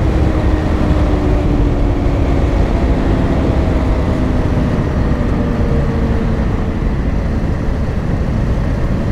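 Riding wind rushing over a GoPro microphone, with a Honda CRF dual-sport motorcycle's single-cylinder engine running underneath, its note sinking slowly as the bike eases off.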